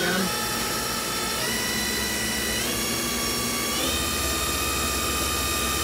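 The 2001 Haas VF3's spindle on its vector drive, running with a whine that steps up in pitch four times, about every second and a quarter, as the spindle speed is raised in stages.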